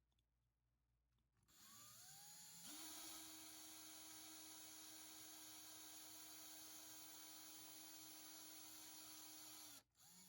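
Faint electric drill spinning up with a rising whine about two seconds in, then running at a steady pitch for about seven seconds before stopping near the end, as it drills out the rivet post of a diecast toy car.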